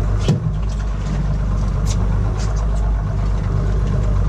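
Boat engine idling steadily under a low hum, with one short knock about a third of a second in and scattered faint ticks.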